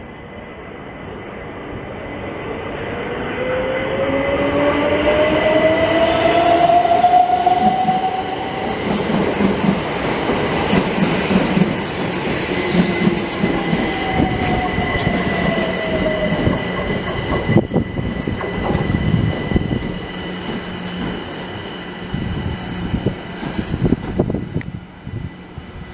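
A train running through the station, growing louder over the first few seconds with a rising whine, then a long stretch of wheels clattering over the rail joints, with a second, falling whine partway through.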